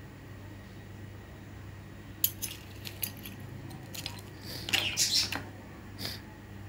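Dissection instruments being handled in their metal tin: light scattered clinks and clicks of metal and plastic, with a few about two seconds in and a quick cluster about five seconds in.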